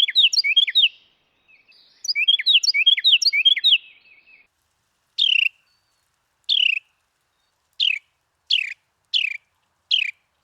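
Carolina wren singing: two loud bursts of its rapid, rolling 'tea-kettle, tea-kettle' chant, then a string of single sharp falling notes about a second apart.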